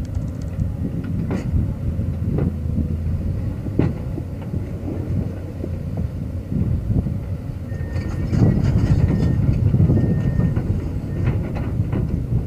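Volvo EC210B excavator's six-cylinder turbo diesel running, with scattered metal clanks. It grows louder about eight seconds in, along with a thin high whine.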